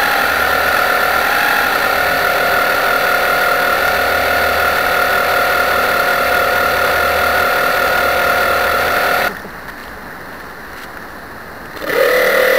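RC model boat's drive motor whining steadily, heard from a camera on board. About nine seconds in the whine stops and only a quieter low rumble is left, until the motor comes back near the end at a different pitch.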